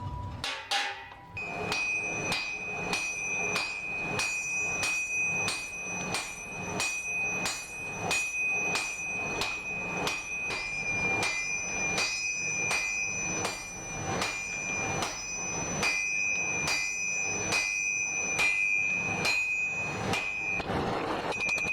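Hammer blows on an anvil, about two a second, each strike keeping the anvil ringing with a steady high tone; this is steel being forged by hand.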